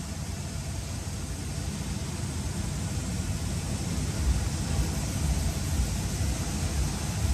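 Electric sander running steadily against an alloy wheel, sanding out curb rash with 320-grit paper; it gets louder about four seconds in.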